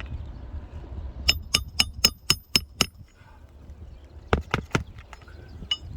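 Hammer driving roofing nails into an asphalt shingle: a quick run of seven ringing strikes at about four a second, then three more strikes and a last single one near the end.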